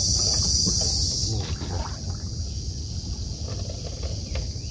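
A high, steady chorus of insects that cuts off suddenly about a second in, over a low rumble with a few faint knocks.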